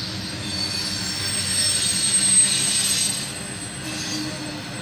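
Freight train rolling past, its wheels squealing in thin, high, steady tones over a low rumble of the cars; the squeal swells to its loudest about halfway through.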